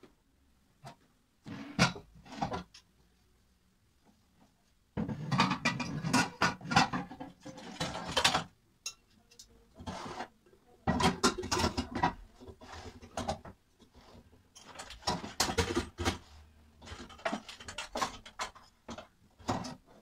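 Metal pots and lids knocking and clattering as they are set onto a cabinet shelf, in several bursts of handling with short quiet gaps between.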